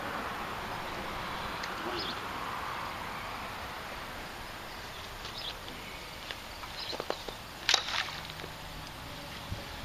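Steady outdoor background noise, with scattered small clicks and one sharper click about eight seconds in.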